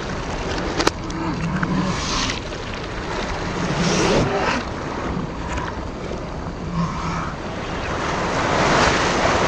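Water splashing and sloshing as children thrash and swim in shallow river water, in several surges, with a sharp click about a second in.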